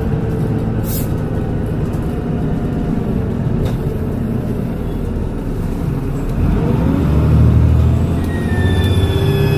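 Transbus Trident double-decker bus's diesel engine running. About six and a half seconds in it revs up as the bus pulls away, with a rising whine and, near the end, a high turbocharger whistle climbing in pitch.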